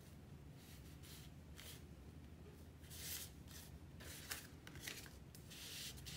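Paper and cardstock being handled on a cutting mat: a series of short, faint rustling swishes over a low steady hum.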